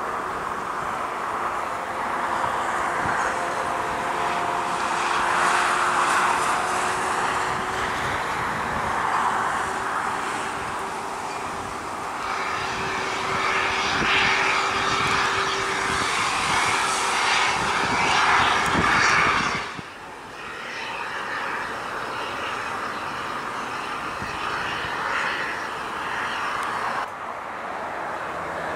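Jet engines of an Airbus A321neo rolling down the runway after landing: a steady roar with a thin turbine whine, swelling louder about halfway through. The sound then drops off suddenly and a quieter roar carries on.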